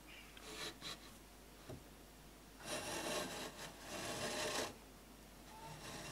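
A No. 5½ bench plane with a cambered blade taking a shaving along the edge of a board: one long stroke of about two seconds in the middle, with a few short, lighter scrapes before it.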